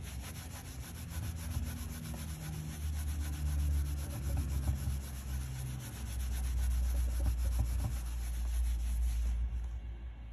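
Microfiber cloth rubbing over a walnut board, buffing in hard wax oil with quick, even back-and-forth strokes over a low rumble. The rubbing stops near the end.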